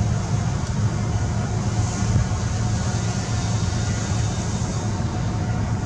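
Steady low rumble of outdoor background noise with a faint, even hum above it, unchanging throughout.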